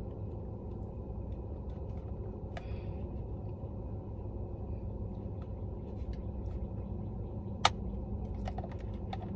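Steady low rumble inside a stationary car's cabin, with one sharp click a little past two-thirds of the way through.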